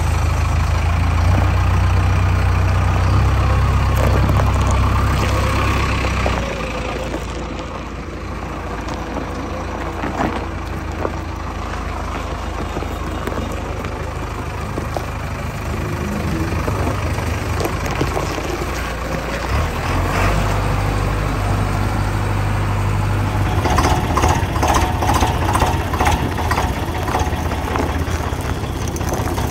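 Diesel engine of a JCB 3DX backhoe loader idling with a steady low rumble that eases off about six seconds in. Near the end the sound changes to an Eicher tractor's diesel idling with a rapid knocking clatter.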